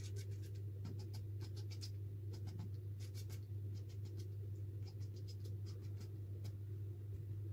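A small white pad rubbing and dabbing against a painted sheet of paper: a run of short strokes, dense at first and fewer in the second half, over a steady low hum.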